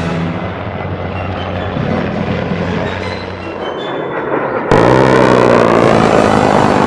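Background music, then about four and a half seconds in the sudden loud sound of an A-10 passing low overhead, falling in pitch as it goes by, cut off abruptly about two seconds later.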